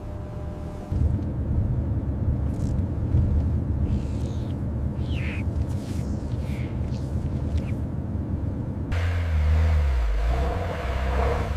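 A loud, low rumble. About nine seconds in it changes to a pitched, motor-like hum whose pitch wavers up and down.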